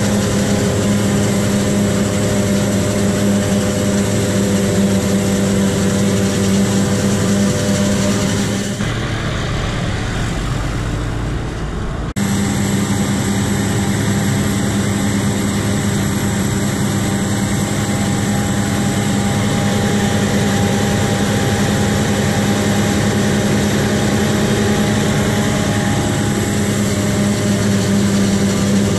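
Heavy farm machinery in a maize silage harvest, its diesel engine running steadily at constant speed with a hiss over the engine hum. About nine seconds in, the sound turns to a duller, deeper rumble for about three seconds, then switches suddenly back to the steady running.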